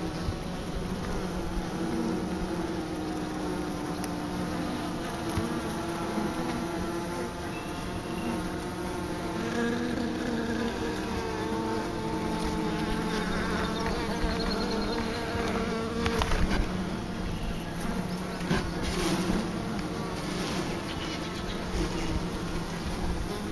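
A dense cluster of honey bees humming steadily inside a wooden hive, the buzz a layered drone whose pitch wavers slightly. A few short knocks come through in the second half.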